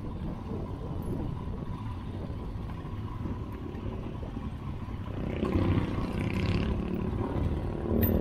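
Motorcycle engine running at low speed on a dirt track, a steady low rumble that grows louder about five seconds in.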